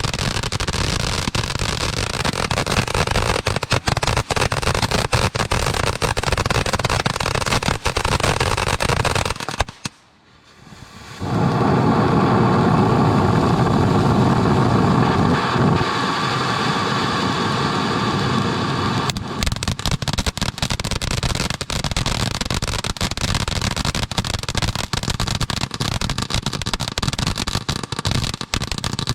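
Fireworks being launched and bursting: dense, rapid crackling and popping. The sound drops out abruptly about a third of the way in, returns as a steadier, fuller stretch, then goes back to crackling.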